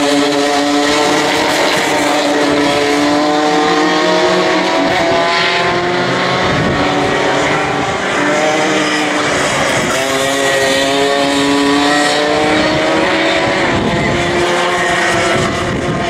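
Engines of several two-stroke racing karts running together, their overlapping pitches rising and falling as the karts lift off and accelerate through the corners.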